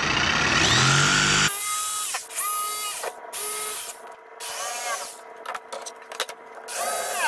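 DeWalt jigsaw cutting into a pine board, its motor running up in pitch and stopping abruptly about a second and a half in. After that come several short whines that rise and fall in pitch.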